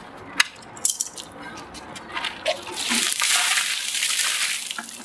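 A bucket of ice-cold water dumped over a person's head. A couple of knocks in the first second, then about three seconds in a loud rush of water cascading and splashing down for about two seconds.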